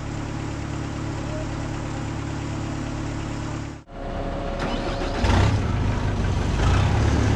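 Heavy concrete truck engines running steadily. About four seconds in the sound breaks off sharply, and a louder, deeper engine comes in, with a brief scrape or hiss before it settles.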